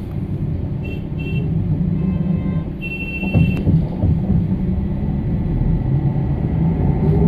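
Low, steady rumble inside a trolleybus cabin, with a few short, high-pitched squeals between about one and four seconds in.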